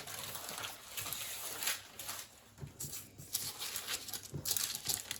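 Baking paper rustling and crinkling as it is handled, in several short bouts.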